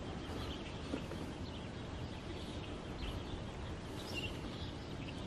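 Steady low background rumble with faint, scattered high bird chirps; one chirp stands out about four seconds in.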